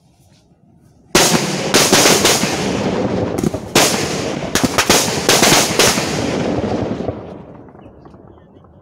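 A Higad Pla Pla XXL firecracker string going off in a rapid, continuous crackle of bangs. It starts suddenly about a second in, with a few louder bangs standing out, and dies away about six seconds later.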